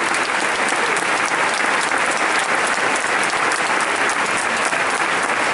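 A large crowd applauding with steady, dense clapping.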